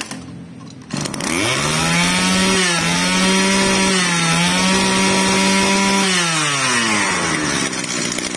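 Kawasaki TG28 28 cc two-stroke brush cutter engine revved from idle. About a second in it climbs quickly to high speed, holds there for about five seconds with two brief dips, then winds back down to idle near the end. It picks up readily: 'very punchy'.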